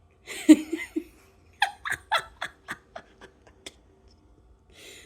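A short breathy burst, then a run of about nine quick 'ha-ha' laughing pulses that fade away.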